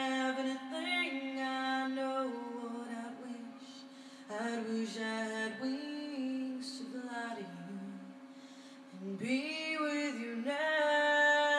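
A slow ballad sung by a woman, her voice holding long notes in phrases with short lulls between them.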